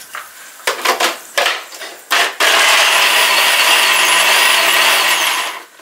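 Electric blender's small mill jar grinding ginger and garlic to paste. A few clicks and knocks as the jar is fitted, then the motor starts about halfway in and runs loud and steady with a slightly wavering whine, stopping just before the end.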